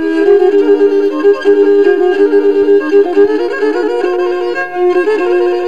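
Instrumental music led by a bowed string instrument playing a quick melody on two strings at once, the two voices moving in parallel, with no singing.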